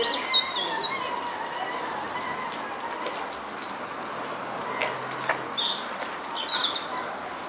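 Small birds chirping in short calls near the start and again a little after halfway, over a steady rushing hiss, with a few faint clicks.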